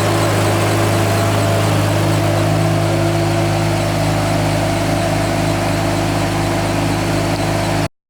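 BMW S54 3.2-litre straight-six idling steadily, started to check for leaks after an oil change. The sound cuts off suddenly near the end.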